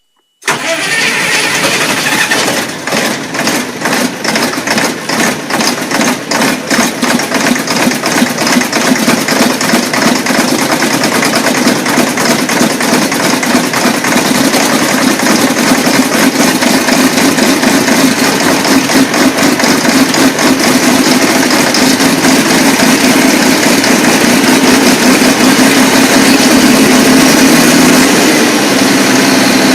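Large engine running just after a cold start, firing in slow, uneven beats for the first few seconds, then smoothing into a steady run, its pitch rising slightly near the end.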